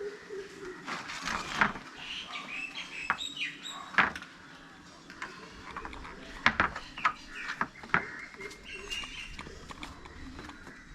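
Plastic parts of a compost bin knocking and clicking irregularly as they are handled, fitted and twisted together.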